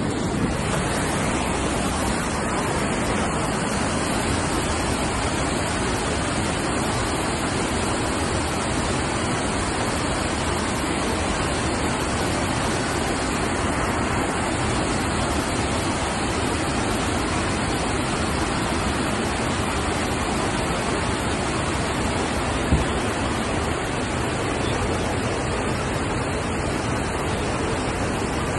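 Steady rush of water pouring through a concrete dam spillway bay as a wooden stop log is lifted out, with one short knock about three-quarters of the way through.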